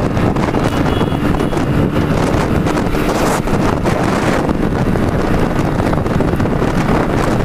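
Heavy wind buffeting the microphone on a motorcycle ridden at speed, over the steady running of its small single-cylinder engine.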